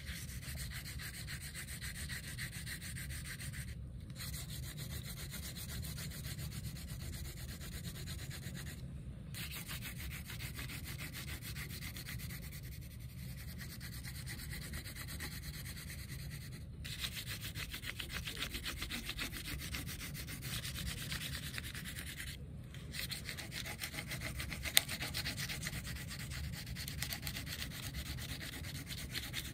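Green wax crayon rubbed rapidly back and forth over construction paper, a steady rubbing of many quick strokes as a large area is coloured in, broken by a few brief silences.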